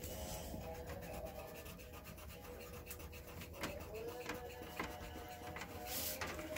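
Felt-tip marker scratching on paper in quick, short strokes, faint and rapid, with one sharper stroke near the end.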